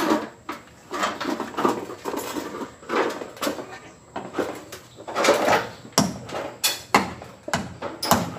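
Galvanized corrugated iron sheet being worked: tin snips crunching and clicking as they cut through the sheet, then a hammer knocking nails through a sheet into the wooden fence frame, several sharp knocks in the last few seconds.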